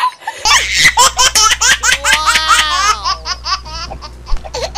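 Laughter, most like a baby's, in quick repeated bursts with a long rising-and-falling squeal in the middle. It starts suddenly about half a second in, over a low steady hum.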